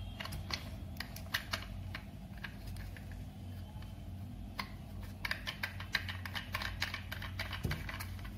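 Plastic parts of a Portronics Clamp M car phone holder clicking and rattling as they are fitted together and tightened by hand, in scattered clusters with a busier run of clicks from about five seconds in. A steady low hum lies underneath.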